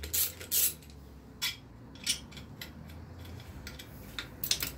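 Hand socket ratchet on a long extension clicking through two strokes as a bolt on the motorcycle's exhaust mount is worked loose, then a few scattered light metallic clicks, with a short cluster of them near the end.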